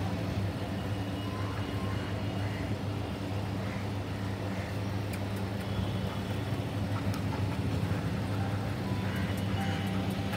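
A steady low mechanical hum with no let-up, with a few faint higher tones and light ticks over it.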